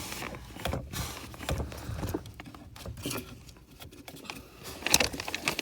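Hands fitting a brake light switch behind the brake pedal: small irregular clicks, taps and rustling as the switch is slipped into its bracket and twisted, with a cluster of sharp clicks near the end.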